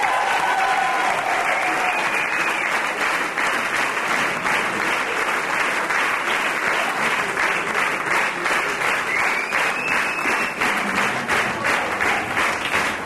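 Theatre audience applauding, the clapping falling into a steady rhythm in unison, about three claps a second.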